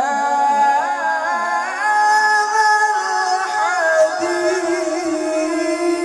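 A man reciting the Quran in the melodic, sung style, holding long drawn-out notes with ornamented slides in pitch, then moving up to a higher held note about four seconds in.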